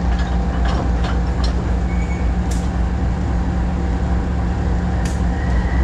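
Diesel-electric locomotive engine running with a steady deep hum as the locomotive closes up to the ore wagon to couple, with scattered light clicks and knocks.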